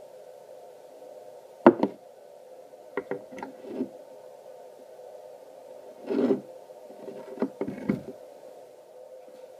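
Stainless steel pipe fittings and a pump being handled and set down on a wooden board: a string of knocks and clinks, the loudest two close together a little under two seconds in, more scattered ones after, over a steady low hum.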